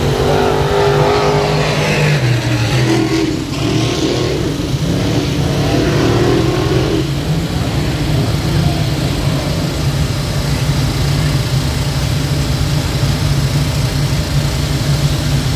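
Dirt-track sportsman modified race cars running at speed, their V8 engines droning steadily. Engine notes rise and fall as cars go by, twice in the first seven seconds.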